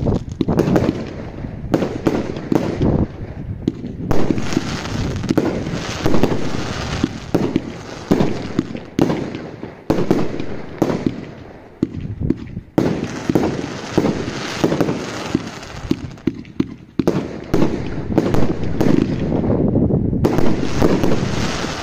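Epic Fireworks Silver Willow 50-shot barrage cake firing: a rapid string of bangs, a few a second, from shots launching and bursting, with brief lulls now and then.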